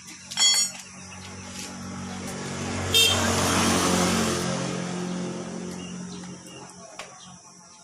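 A motor vehicle passing by: its engine and tyre noise swells, peaks about three to four seconds in, then fades away. Short sharp high sounds come at about half a second and three seconds in.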